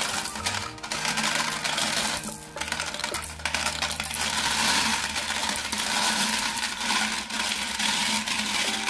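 Many glass marbles clattering and clinking as they pour out of a Bruder toy cement mixer truck's drum, down its plastic chute and onto a pile of other marbles.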